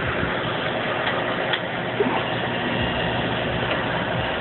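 Car engine idling steadily, heard from inside the car, with a couple of light clicks near the middle.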